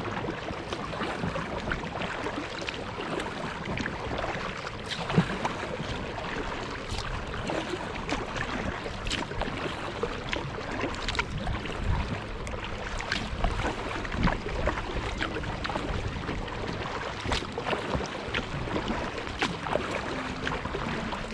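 Water lapping and splashing against the bow of a moving kayak, a steady wash broken by frequent small, irregular splashes.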